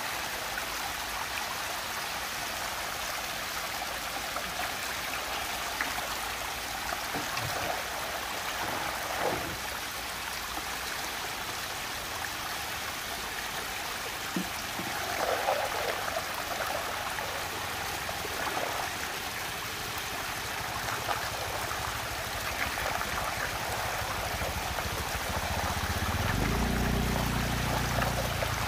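Water rushing and swirling down a whirlpool vortex, a steady stream-like rush with a few small splashes as toys drop into it. A low rumble builds in near the end.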